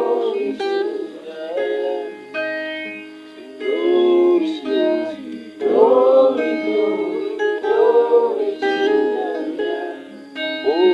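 A song: voices singing over plucked-string accompaniment, in phrases a second or two long with short gaps between them.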